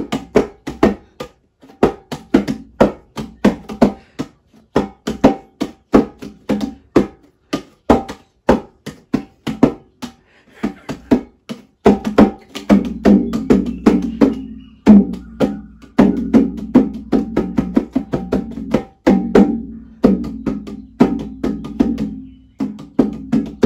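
Hand drum played with the bare hands: quick, loose strokes several per second in a rough rhythm. About halfway through, deeper strokes come in with a low ring that lingers between them.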